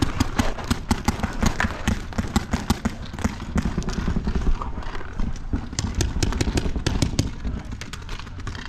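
Rapid, irregular clatter of sharp knocks and thuds in video-game audio, several a second, easing a little near the end.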